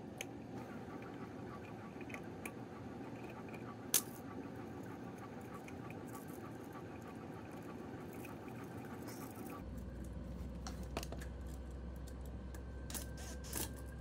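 Small clicks and scrapes of a hand tool working the ends of electrical wires straight, with one sharper click about four seconds in and a few more clicks near the end, over a steady low hum that deepens about ten seconds in.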